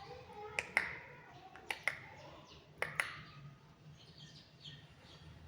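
Three pairs of sharp clicks, each pair about a second after the last, with faint chirps in between.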